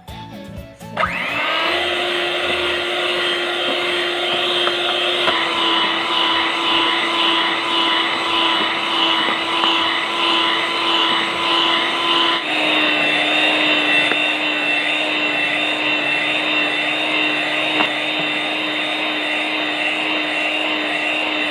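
Electric hand mixer starting about a second in and running steadily, its beaters whipping chilled cream in a metal bowl until it increases in volume; the motor note drops slightly twice.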